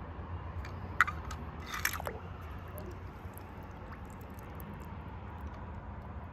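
Small die-cast toy car dropped into a swimming pool: a sharp splash about a second in and a second plop just after, followed by faint ticks over a steady low hum.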